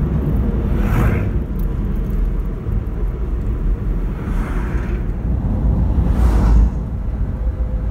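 Steady low road rumble from a moving kei truck, with large trucks passing in the opposite lane about three times, each a swelling and fading whoosh.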